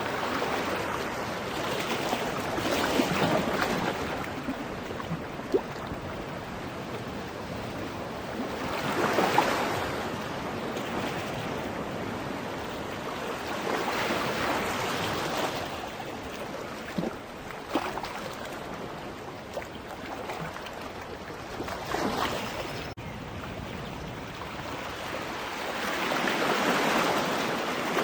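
Ocean waves breaking on a beach: a steady wash of surf that swells as each wave comes in, about every six seconds.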